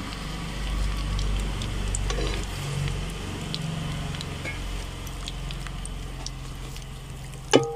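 Curry leaves frying in hot oil in a large metal pan: a steady sizzle with scattered small pops, while a perforated metal skimmer stirs and scoops them out.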